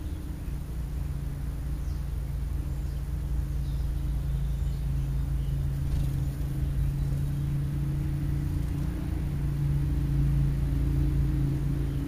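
Steady low motor hum over a deep rumble, slowly growing louder toward the end.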